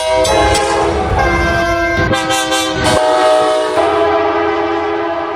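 Diesel locomotive's multi-chime air horn sounding a loud chord, its pitches stepping down a few times, with a couple of heavy thumps around two and three seconds in. It begins fading out near the end.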